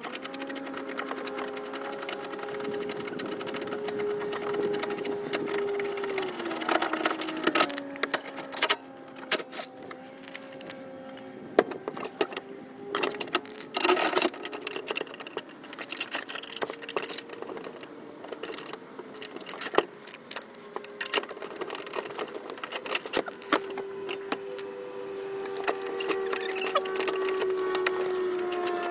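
Scattered metal clicks and clinks of a socket, bolt and washer being handled and turned by hand under a car, over a steady hum that drops in pitch a couple of times.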